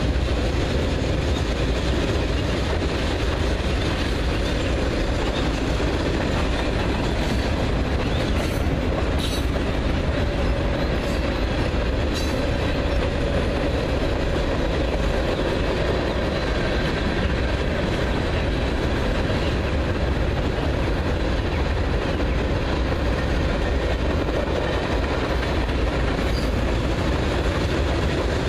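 Long freight train of covered hopper cars rolling steadily over a ballasted concrete bridge: a continuous rumble of steel wheels on rail. A few faint sharp ticks come about a third of the way in.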